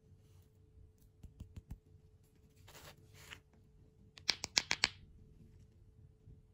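Two hard-candy lollipop heads knocked together: a quick run of about six sharp clicks a little past the middle, after a brief scratchy rustle and a few soft taps from handling.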